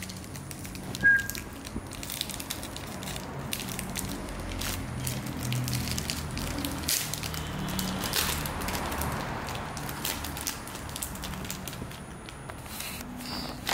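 Crinkling and crackling of a small foil-lined paper wrapper being torn open and handled by fingers, with irregular sharp crackles.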